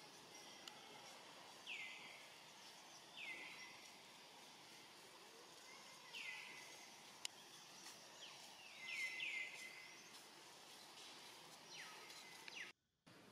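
Short high-pitched animal calls, each sweeping down in pitch, about seven in all, with three in quick succession around the middle, over a faint steady background hiss.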